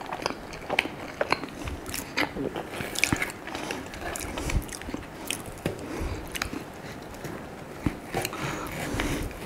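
Close-up eating sounds of a crepe being bitten and chewed, with many irregular small clicks.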